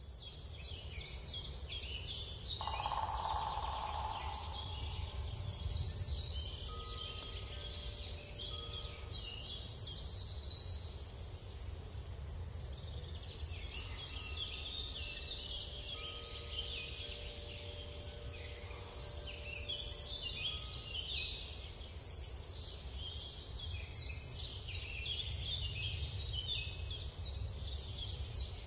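Small birds chirping in short, rapid trills, repeated in clusters with brief gaps, over a steady low outdoor rumble.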